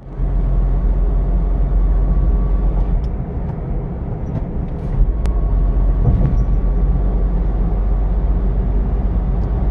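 Car driving on the open road, heard from inside the cabin: steady low road and engine rumble.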